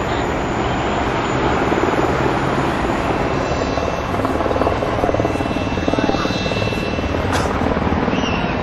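Aircraft overhead, a steady loud rumble with a fast, even throbbing pulse.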